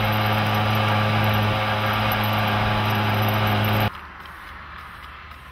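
Small two-stroke Mofa engine running at a steady pitch while riding, with road and wind noise. It cuts off abruptly about four seconds in, leaving a much quieter background with a few faint ticks.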